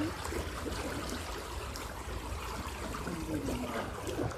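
Mountain river water rushing past: a steady noise of flowing water.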